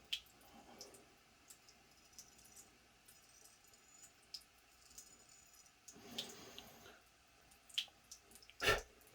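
Faint handling sounds: scattered small ticks and light rustling, with a louder knock near the end.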